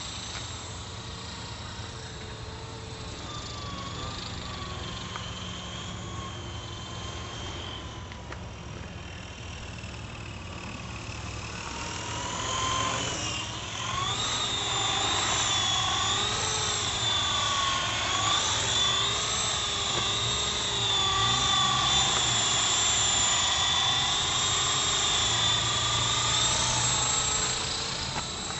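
E-flite Blade CP electric RC helicopter in flight: a steady high motor and rotor whine whose pitch wavers up and down as it manoeuvres, growing louder about halfway through.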